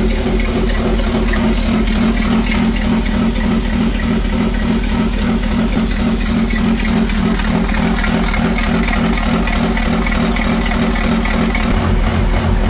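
BMW B58 turbocharged inline-six idling through a straight downpipe with no catalytic converter, its note steady throughout. It is running on a standalone ECU that is not yet tuned and does not yet run it properly.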